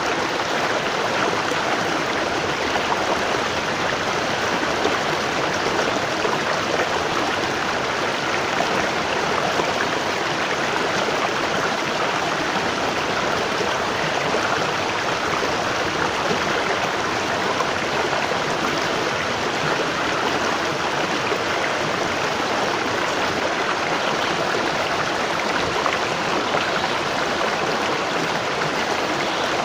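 Waterfall: water falling and rushing in a steady, unbroken roar of white noise.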